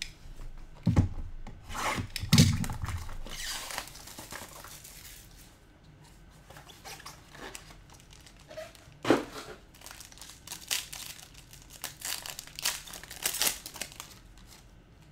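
Trading-card pack wrappers being torn open and crinkled, with two low thumps about one and two and a half seconds in and more crinkling near the end.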